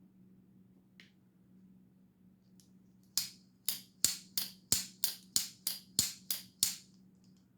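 Microtech RAM-LOK folding knife being snapped open and shut over and over, about eleven sharp metallic clicks at roughly three a second, working fresh oil into the new Skiff ceramic pivot bearings and lock spring.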